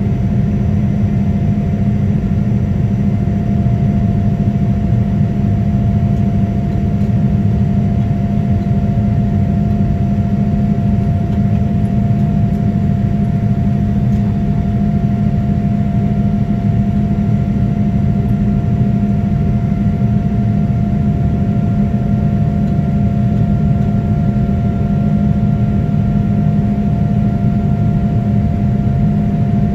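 Boeing 787-10's GE GEnx-1B turbofan engines running at climb power after takeoff, heard from inside the cabin over the wing. A loud, steady rush with a low hum and a fainter, higher steady tone.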